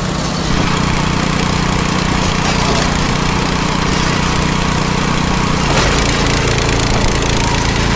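Motor of a homemade log splitter running steadily under load as logs are split; its note shifts slightly about six seconds in.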